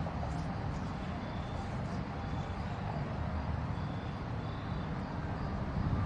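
Diesel-electric freight locomotive running at low throttle, a steady low rumble.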